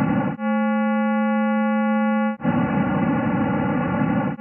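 Computer-synthesised re-creation of the primordial sound of the young universe, built from the acoustic harmonics of the cosmic microwave background. It switches back and forth about every two seconds between the 'pure' P(k) version, a noisy hiss-like chord, and an artificial musical version with narrow harmonics, a clean, steady, eerie chord. It starts on the noisy version, changes to the clean chord under half a second in, and goes back to the noisy version about halfway through.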